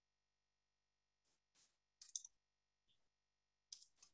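Near silence broken by a few faint, scattered computer-keyboard clicks, a small cluster about two seconds in and another near the end.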